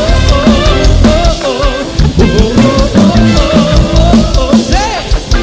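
Worship band music with a drum kit playing a steady rock beat of kick and snare under sustained chords and a wavering lead melody.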